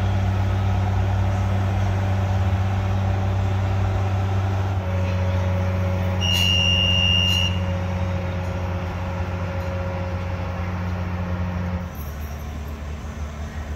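A construction crane's engine running steadily under load as it hoists a roller coaster track piece, with its level dropping near the end. A single high beep sounds for about a second roughly six seconds in.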